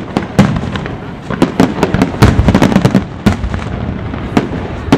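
Display fireworks going off in a fast, irregular string of sharp bangs and crackles, densest in the middle and thinning out near the end.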